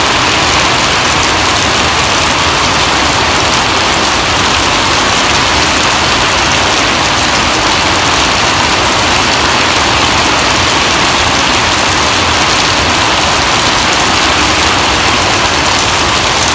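Heavy rain pouring steadily onto a wet paved road, a dense, even hiss of drops splashing.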